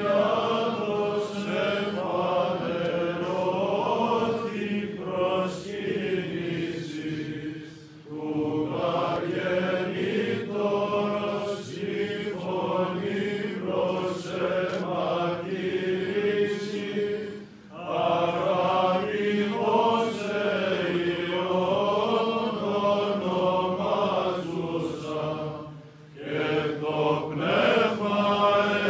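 Orthodox monks singing Byzantine chant: a melodic line that winds up and down over a steady held drone (ison). The singing breaks briefly between phrases three times.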